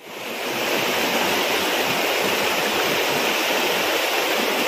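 River water rushing steadily over rocks in shallow rapids, a continuous even rush that comes in quickly at the start.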